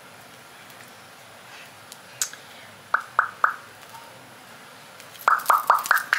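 Short, high yelps from an animal: three quick ones about three seconds in, then a fast run of about five louder ones near the end.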